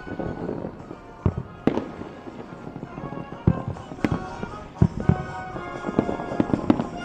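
Aerial firework shells bursting: a string of sharp bangs at irregular intervals, about a dozen in seven seconds, over music playing throughout.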